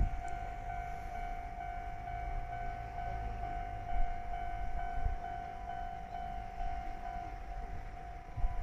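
Railway level-crossing alarm ringing steadily as a train approaches: one unbroken, slightly pulsing tone over a low rumble.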